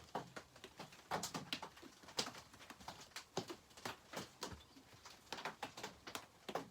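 Irregular light clicks and taps of small chainsaw parts, the oil pump and its gasket, being handled and set down on a workbench.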